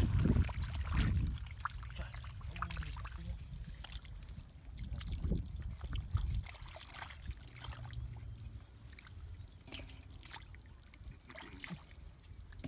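Hands digging and squelching through wet mud and shallow muddy water, with small splashes and trickles; loudest in the first second or so, then softer scattered wet clicks.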